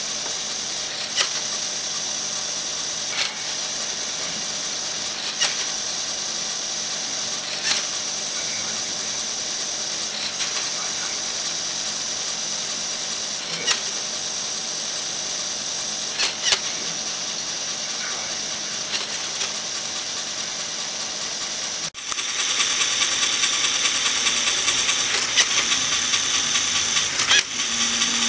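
LEGO NXT motors driving a Technic gear switching mechanism: a steady whirring with a sharp click every couple of seconds. The running gets louder about 22 seconds in.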